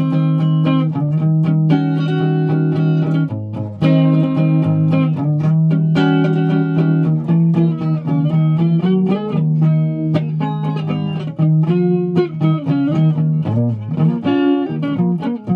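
Guitar played slowly, one held note after another, each ringing for about a second or two, with a short sliding rise in pitch about halfway through.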